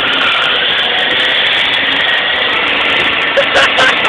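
Ford Ranger pickup doing a burnout on wet pavement: the rear tyres spin in place against the brakes with the engine held at high revs. The result is a loud, steady hiss and whine of wheelspin.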